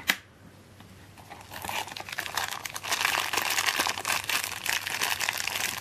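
Clear plastic bag crinkling as hands handle and work open a small bagged figurine, starting about a second and a half in and going on steadily. A single sharp click comes at the very start.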